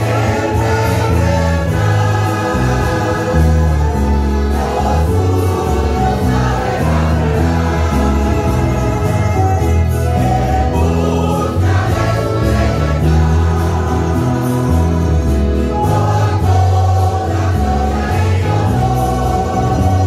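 A church choir singing a Spanish-language hymn, accompanied by an ensemble of mandolins and guitars.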